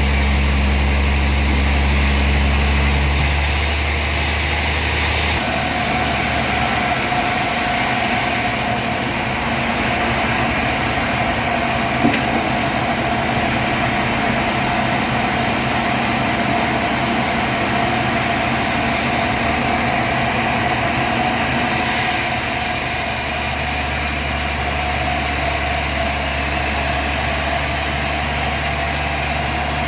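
Sawmill machinery running steadily. Its low hum drops away a few seconds in and returns near the end, a steady whine runs through the middle stretch, and a single click comes about twelve seconds in.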